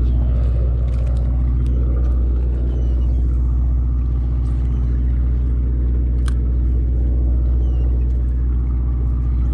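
Sportfishing boat's engine running at a steady low rumble, with one sharp click about six seconds in.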